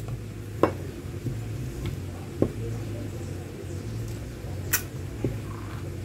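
A handful of sharp metallic clicks and clinks as electric fan motor parts (rotor, stator, small fittings) are taken apart and set down on a workbench, over a steady low hum.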